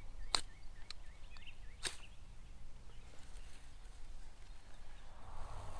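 Back of a knife scraped hard down a ferro rod twice, about a second and a half apart, striking sparks into a tinder bundle with charred cloth to start a fire.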